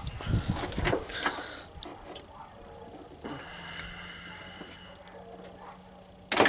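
Hands working plastic headlight wiring connectors and clips in a truck's engine bay: scattered clicks and rattling, fading after about two seconds. A faint steady hum comes in about halfway, and a sharp knock sounds near the end.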